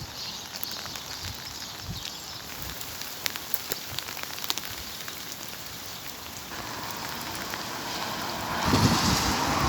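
Steady rain falling, an even hiss with scattered sharp drip ticks; the hiss grows louder over the last few seconds.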